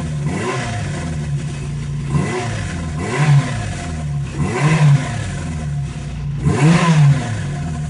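1974 Honda CB350 Four's air-cooled inline four-cylinder engine revved in about five quick throttle blips from idle, each rising and falling back, the last and biggest near the end. The freshly readjusted cam chain no longer whines on the revs.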